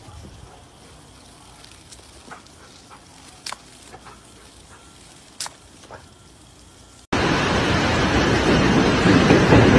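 A quiet stretch with a few faint clicks, then about seven seconds in a sudden cut to loud, steady rain hitting a corrugated metal roof.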